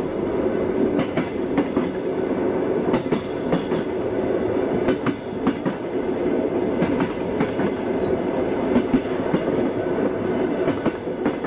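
Railway carriage running along the track: a steady rolling rumble with the rhythmic clickety-clack of the wheels over rail joints, coming in clusters of clicks every couple of seconds.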